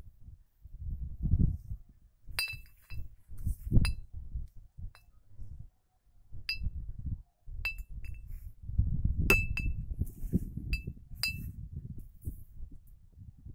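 Hanging glass beer bottle clinking irregularly as a small disc hung beside it, swung by the wind, knocks against it. There are about a dozen sharp, ringing clinks, some in quick pairs. Wind gusts rumble low underneath. It is a wind-driven noisemaker meant to scare animals off a field.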